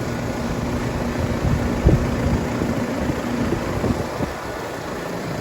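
Outdoor air-conditioner condensing units running: a steady fan and compressor noise with a low hum that drops out a little past halfway, and a few short low thumps.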